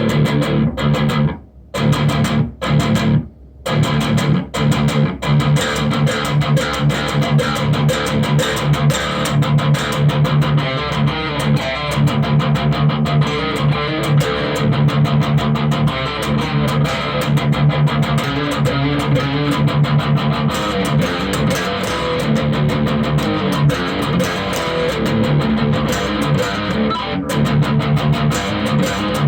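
ESP E-II electric guitar played through a Vox Cambridge 50 amp with a heavy metal tone: fast picked riffing on low notes, breaking off twice in the first few seconds, then continuing without pause.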